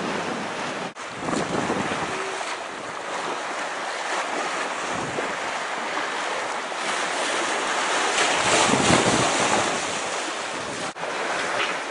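Water rushing past the hull of a sailing yacht under way, with wind buffeting the microphone, swelling louder about two thirds through.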